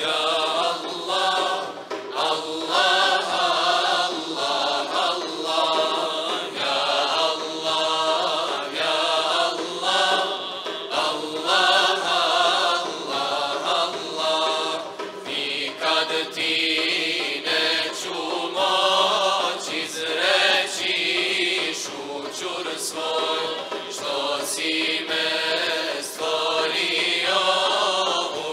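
Mixed choir singing an ilahija, a Bosnian Islamic devotional hymn, in phrases with short breaks. A def frame drum adds strikes from about halfway.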